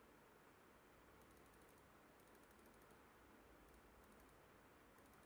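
Near silence: quiet room tone with four short bursts of faint, rapid computer clicking.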